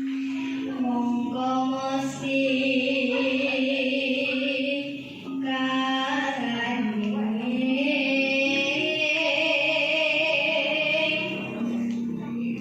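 A young girl singing a traditional Javanese song in long, held notes that bend and waver in pitch, with a short break about five seconds in.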